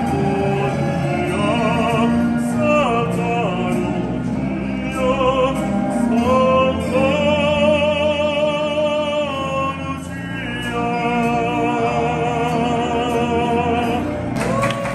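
A street performer singing opera: long held notes with strong vibrato, slow phrases that swell and fall, over a steady accompaniment.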